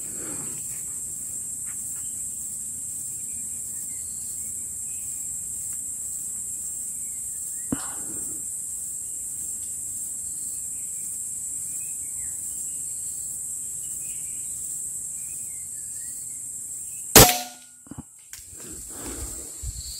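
A single sharp, loud gunshot near the end, over a steady high-pitched drone of night insects, with faint chirps and a small click earlier on.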